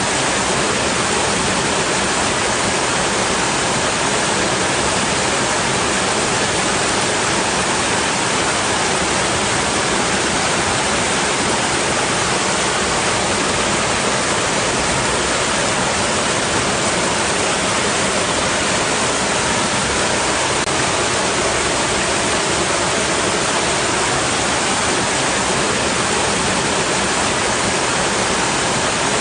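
Water rushing against rocks: a steady, unbroken hiss that neither swells nor fades.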